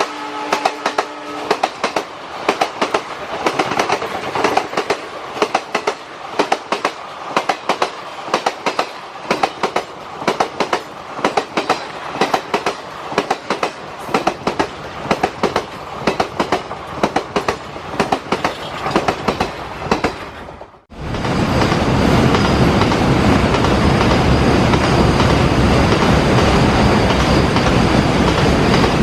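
A locomotive horn ends about a second and a half in. A passing train's wheels then clatter rhythmically over the rail joints. About 21 seconds in the sound cuts off abruptly and a louder, steady rushing rumble of a train passing close takes over.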